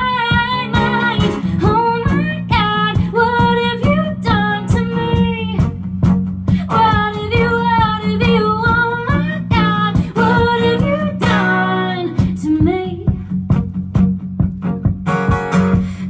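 Live acoustic song: a woman singing a melody over several acoustic guitars, with a short pause in the voice about halfway through.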